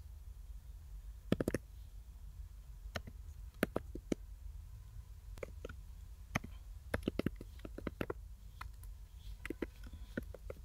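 Computer keyboard keys clicking as a short command is typed, in irregular keystrokes with a quick cluster about one and a half seconds in.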